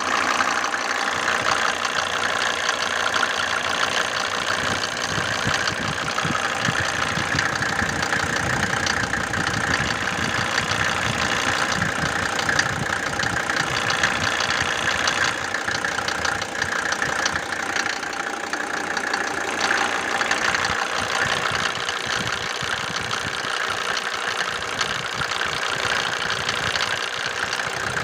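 Mercedes-Benz W124's OM602 five-cylinder turbo diesel idling, with a rapid rattling knock from the accessory belt tensioner, the sign of a worn-out tensioner shock.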